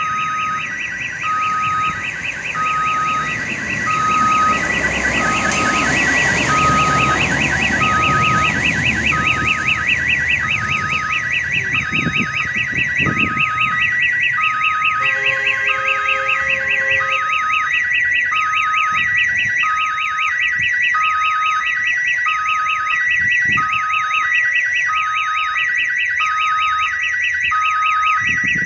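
Railway level-crossing warning siren sounding continuously to signal an approaching train: a fast warbling wail over a repeating beep, a sound the uploader likens to the siren of an odong-odong children's ride. A broad rumble swells and fades in the first ten seconds.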